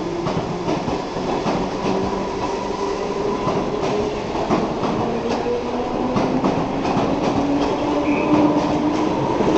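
A London Underground District line D78 stock train passing through a station without stopping: a steady rail rumble with scattered wheel clicks over rail joints, and a motor whine that slowly rises in pitch.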